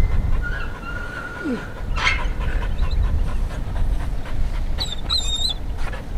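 Dog whining: a long, thin, steady whine about half a second in, and a shorter wavering, higher whine near the end, over a low rumble.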